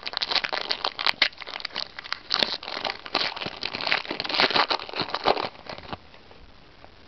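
A Yu-Gi-Oh booster pack's foil wrapper being torn open and crinkled by hand, a dense, irregular crackling that stops about six seconds in.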